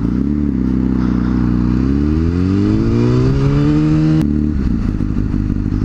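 Honda CBR1000RR sportbike's inline-four engine pulling under acceleration, its pitch rising for about two seconds, then dropping sharply at an upshift a little after four seconds in and running steady, with wind rush over the microphone.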